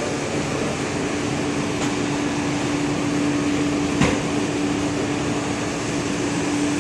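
Steady whirring hum of industrial laundry machinery, with one unwavering low drone running through it. A single sharp knock sounds about four seconds in.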